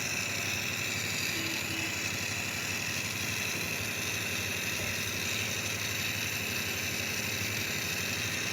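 A machine running with a steady, unbroken hum.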